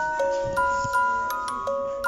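Background music played on a music box: a slow melody of single bell-like notes, about three a second, each fading away.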